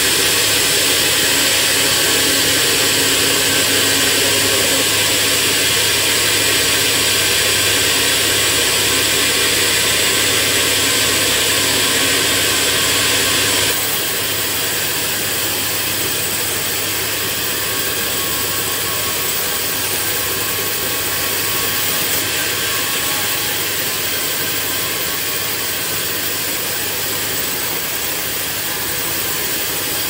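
Locally assembled band sawmill running, its blade steadily sawing lengthwise through a hardwood beam: continuous machine noise with a high hiss. The sound steps down slightly about halfway through and carries on steadily.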